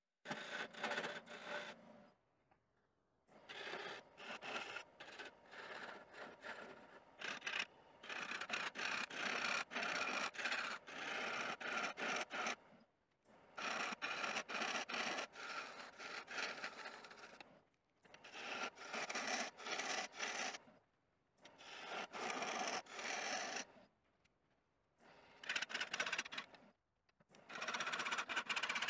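A turning tool cutting into a wooden log spinning on a lathe, throwing shavings. The cutting comes in stretches of a few seconds, broken by several short, abrupt silences.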